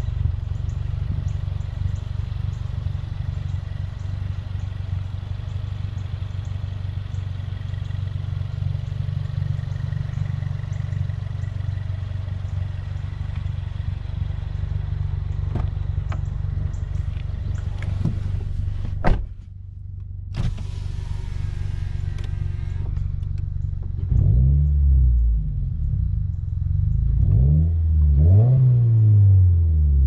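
Tuned Subaru WRX's turbocharged flat-four idling steadily. About 19 seconds in a car door shuts with a sharp thud and the engine becomes muffled, as heard from inside the cabin. From about 24 seconds the engine is blipped several times, revs rising and falling.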